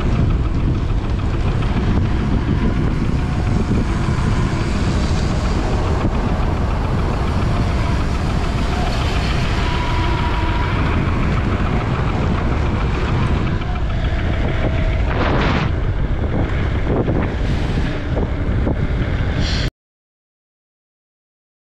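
Wind rushing over the microphone of a camera on a mountain bike descending a paved road at speed, a steady loud rush. It cuts off suddenly near the end into silence.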